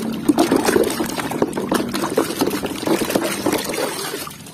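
Muddy water sloshing and splashing in a plastic tub as a hand scrubs a plastic mask under the surface. The splashing eases off near the end as the mask is lifted out.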